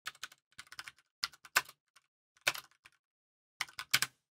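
Typing on a computer keyboard: short runs of keystroke clicks with brief gaps between them.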